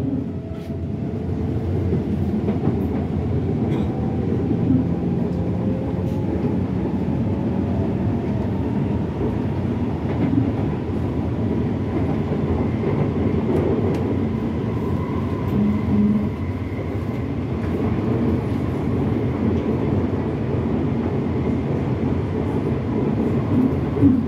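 Steady rumble of an R151 metro train running between stations, heard from inside the car, with faint whining tones that slowly rise in pitch.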